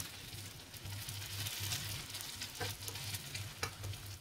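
Oatmeal-and-apple pancakes sizzling and crackling in hot vegetable oil in a frying pan, with a few sharp clicks as a plastic spatula turns them over.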